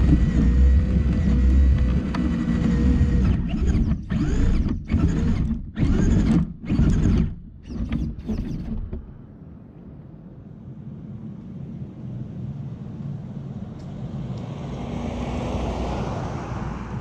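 Traxxas radio-controlled car's motor and drivetrain running, then cutting in and out in a string of short throttle bursts. About nine seconds in this stops, leaving a quieter rushing noise that swells near the end.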